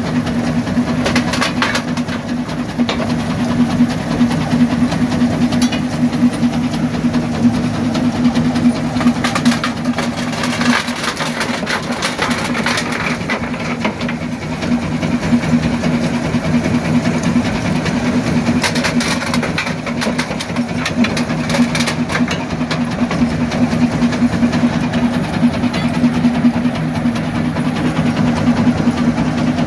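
Primary jaw crusher running with a steady drone, rocks cracking and clattering in spells of sharp impacts, clearest about ten and twenty seconds in.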